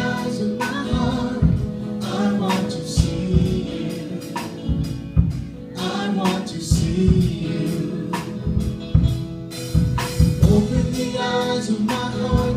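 A live church praise band playing a worship song: several voices singing into microphones over keyboard, electric guitar and drum kit, with steady drum hits throughout.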